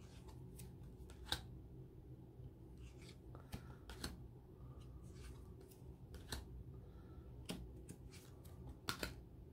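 Tarot cards being slid off a deck and laid down by hand: faint, scattered card snaps and slides, a dozen or so over several seconds.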